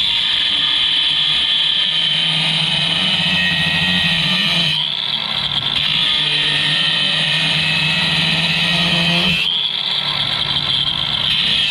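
A DeWalt 20V cordless angle grinder runs with a steady high whine, its disc grinding along a crack in a steel wood-stove plate to open it up for welding. The whine eases briefly twice, about five and nine and a half seconds in, as the disc comes off the metal.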